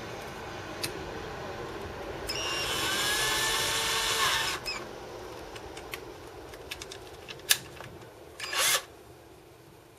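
Cordless drill running with its bit cutting into a phono cartridge clamped in a vise. It runs steadily at first, gets louder for about two seconds and stops, then come a few clicks and a short second burst near the end.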